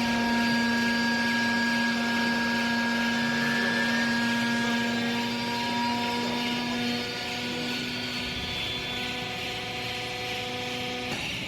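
Hydraulic baling press running, its motor and pump giving a steady hum and whine of several held tones that cut off suddenly near the end.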